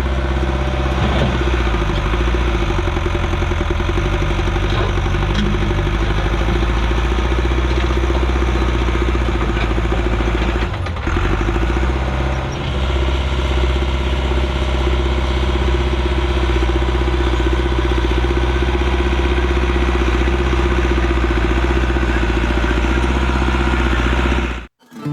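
Allis-Chalmers 655 track loader's engine running steadily, easing briefly about 11 and 12.5 seconds in, then cutting off abruptly near the end.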